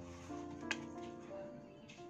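Soft background music with slow, held notes, and one brief click about two-thirds of a second in.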